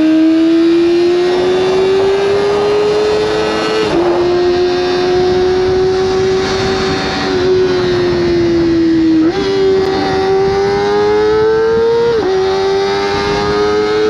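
Kawasaki ZX-25R's 250 cc inline-four running at high revs through an Akrapovic exhaust while cruising, its pitch climbing slowly between quick-shifter gear changes. The pitch drops sharply about 4 s in and again near the end, and steps up once at about 9 s. Wind noise runs underneath.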